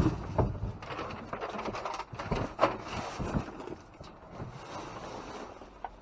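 Cardboard boxes and plastic bags being shifted and rummaged through inside a dumpster: irregular rustling with scattered knocks and thumps, busier in the first half and quieter near the end.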